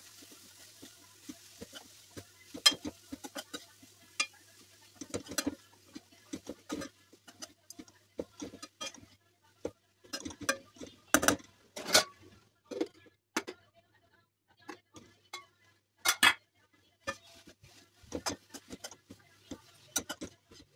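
Metal spoon scraping and knocking against a metal kadai as grated carrot is stirred and tossed. The clicks and scrapes are irregular, with a few louder knocks.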